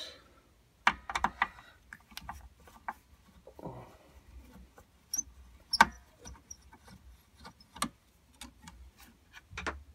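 Screwdriver turning the screws of a metal battery hold-down strap: irregular metallic clicks, taps and scrapes, the sharpest click about six seconds in.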